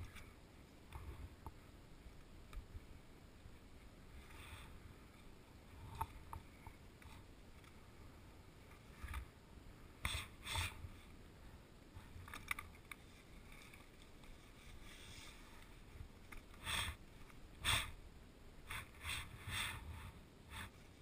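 Faint low wind rumble on the microphone, with scattered short scrapes and crunches of skis and kite gear on snowy ice. They come more often in the second half, with several in quick succession near the end.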